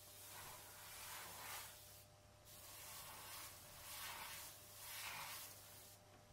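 Airbrush spraying in short passes: a faint air hiss that swells and fades several times, breaks off briefly about two seconds in, then resumes and stops near the end.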